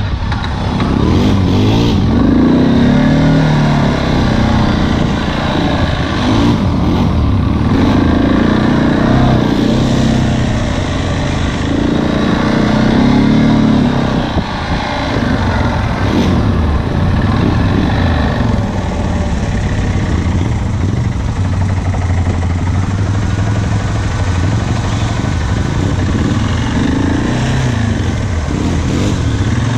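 ATV engine heard from on board while riding a dirt trail, its pitch rising and falling as the throttle is opened and eased, with a brief drop in level about halfway through.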